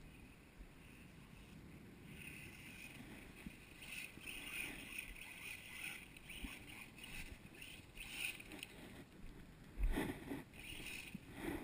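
Faint whine of an RC truck's brushless electric motor (Turnigy Trackstar 3520 kV in a Maverick Strada XT Evo S), rising and falling in surges as the truck accelerates and slows on dirt. Two short thumps near the end.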